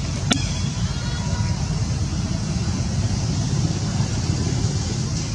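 Steady low rumble with a single sharp click about a third of a second in.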